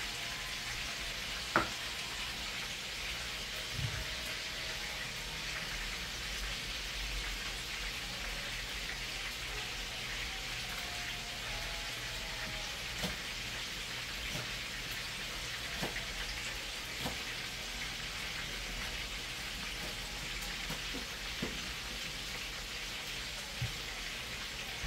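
Chicken pieces frying in a pan, with a steady sizzle, and a few knife taps on a plastic cutting board as vegetables are cut.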